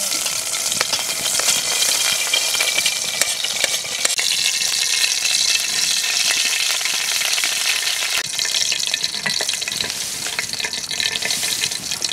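Hot cooking oil sizzling and crackling steadily in an aluminium pot over a wood fire.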